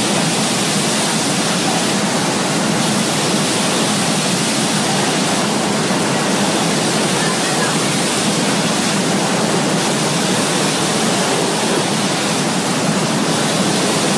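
Steady factory noise of a running juice bottling line, with its conveyor and handle-applying machine going: a dense, even hiss with a low hum underneath and no distinct knocks or clunks.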